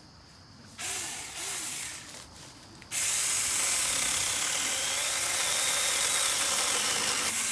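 Battery-powered 4-inch mini chainsaw starting up about a second in, then about three seconds in its chain bites into a branch and cuts with a loud, even rasp until near the end.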